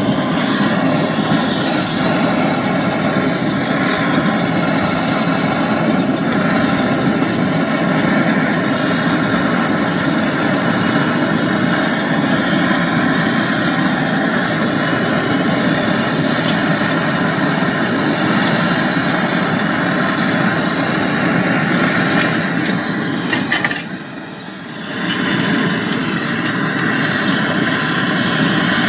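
Gas brazing torch flame burning with a steady rushing noise while it heats a copper pipe joint on a refrigerator compressor; the noise drops briefly about 24 seconds in, then comes back.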